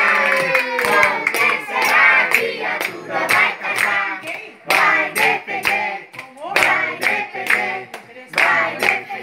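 A group of adults and children singing a party song together with rhythmic hand clapping, about three claps a second.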